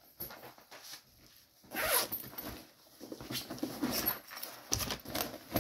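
Fabric backpack being unzipped and rummaged through: a zipper and the rustling and scraping of things being pulled out of the bag, in irregular bursts.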